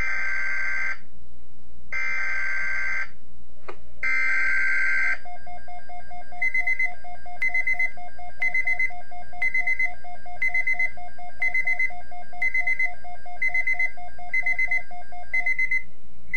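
Weather radio emergency alert: three bursts of digital SAME header data tones, about a second each. Then an electronic alert sounds: rapid low pulsing beeps with a higher beep about once a second, stopping shortly before the end.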